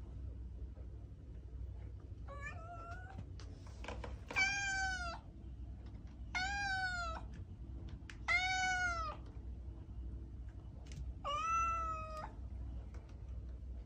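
Domestic cat meowing five times, roughly every two seconds. Each meow is a drawn-out call that rises and then falls in pitch, and the first is fainter than the rest.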